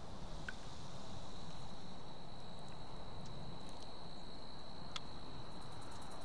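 A steady, high-pitched insect trill holding one note, over low outdoor background noise, with a few faint ticks.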